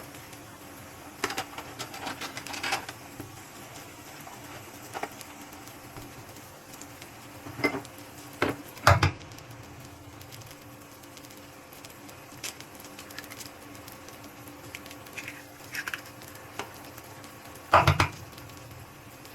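Kitchen utensils and dishes clinking and knocking in scattered clusters, the loudest knocks near the middle and near the end, over a steady low hum.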